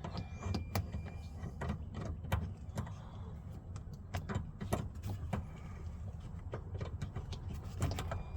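Irregular small clicks and light knocks of hand and tool work on a pickup truck's interior door panel, over a steady low hum.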